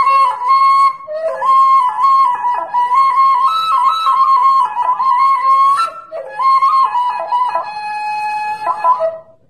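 Music: a solo flute melody moving in steps between held notes, with a short break about six seconds in, fading out just before the end.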